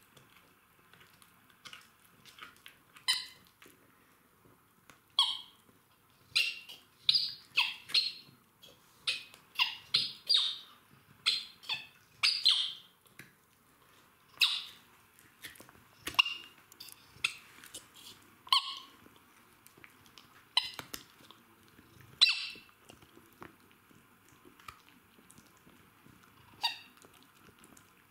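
Jack Russell terrier chewing a red rubber squeaky toy, making it squeak again and again in short, irregular squeaks. The squeaks come quickly for a few seconds, about a third of the way in, then grow sparser.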